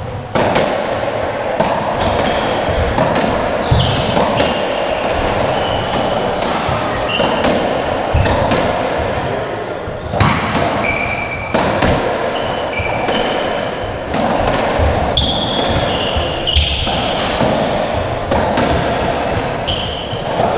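Racketball rally on a squash court: the ball is struck by rackets and hits the walls and wooden floor again and again, in quick irregular knocks. Short high squeaks, likely the players' shoes on the wooden floor, come between the shots.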